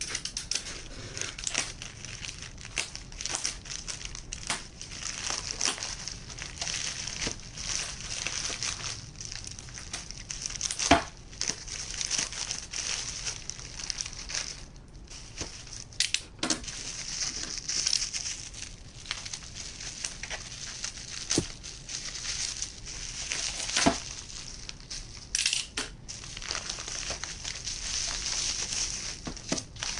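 Plastic packaging crinkling and rustling as a parcel is unwrapped by hand. The parcel is a black plastic mailer bag with bubble wrap inside. Many small crackles run through it, with a few sharper snaps.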